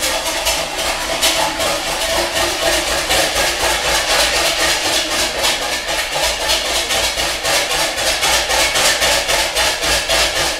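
Wire balloon whisk beating milk, sugar and vanilla sugar in a bowl: a fast, even run of strokes clicking against the bowl, about five a second, mixing until the sugar dissolves into the milk.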